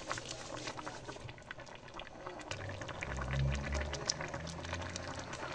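Pork stew in a thick cream sauce bubbling at a simmer in a pot: a steady run of small pops and crackles. A low hum joins about two and a half seconds in.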